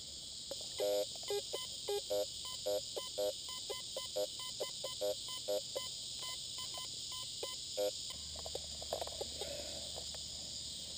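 Fisher F75 metal detector giving a run of short target beeps at differing pitches as its search coil is swept back and forth over the ground, stopping about eight seconds in. A steady insect trill runs underneath.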